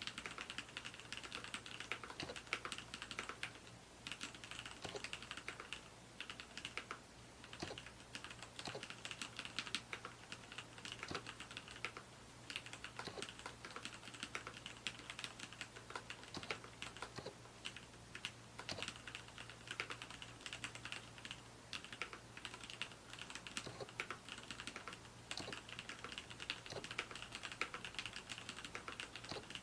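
Mechanical keyboard with lubricated Cherry MX Black linear switches being typed on, fast continuous keystrokes with brief pauses.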